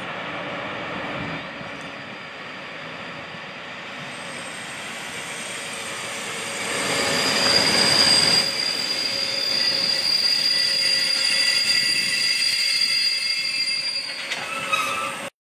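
ČD class 150 electric locomotive hauling passenger coaches rolls past slowly, with rail noise that gets louder as the locomotive draws level about halfway through. From then on a steady high-pitched squeal from the wheels sits over the rolling noise, until the sound cuts off suddenly near the end.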